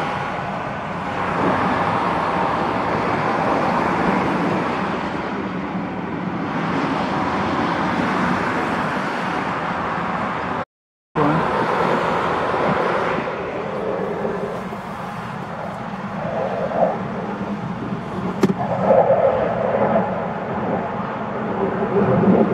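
Steady road and tyre noise of a moving car heard from inside the cabin. It cuts out for a moment about eleven seconds in.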